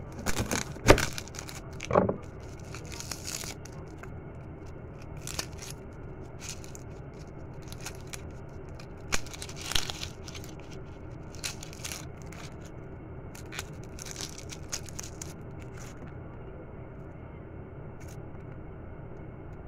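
Dry papery skin of a red onion being peeled by hand, crackling and tearing in short bursts. There are two sharp knocks in the first two seconds.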